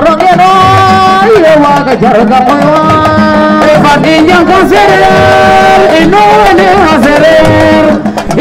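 A woman singing a cappella into a handheld microphone: long held notes with a quick waver in pitch, joined by swooping ornamented runs between them.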